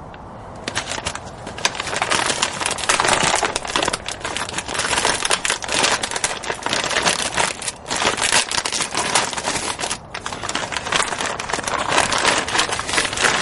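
Plastic wrapping being unwrapped from a new wheel hub assembly, crinkling and crackling irregularly, starting about a second and a half in.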